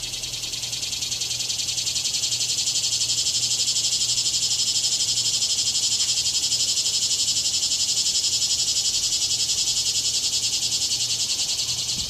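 An animal's loud, high, rapidly pulsing buzz, rising in level over the first two seconds and then holding steady.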